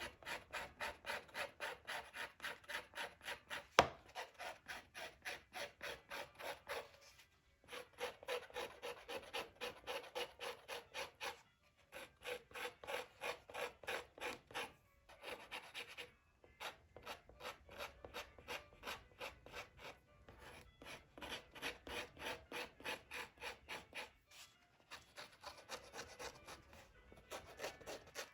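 Parchment of a Torah scroll being scraped clean of surface dirt and residue in quick, short strokes, about three a second, in runs of a few seconds with brief pauses. One sharp click comes about four seconds in.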